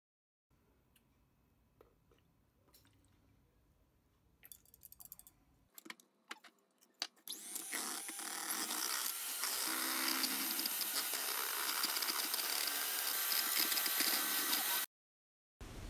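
Faint spoon stirring and scraping in a bowl with a few clicks. About seven seconds in, an electric hand mixer starts and runs steadily, its twin beaters whisking a creamy mixture, until it cuts off suddenly near the end.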